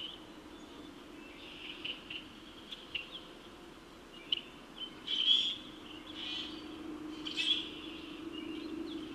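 Small wild birds chirping and calling from the marsh in short scattered notes, busiest about halfway through. A low steady hum underneath grows louder in the second half.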